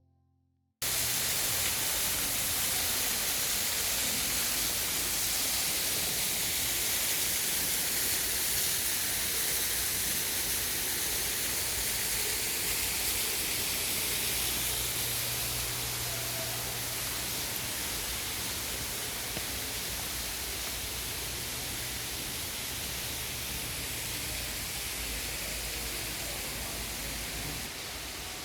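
Steady rushing noise, starting abruptly just under a second in and holding even throughout, with a faint low hum beneath it.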